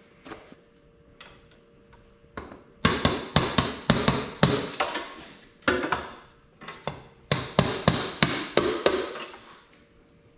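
Hammer striking the Honda ATC 185S's engine side cover to knock it loose instead of prying it off: three runs of quick, sharp knocks starting about three seconds in.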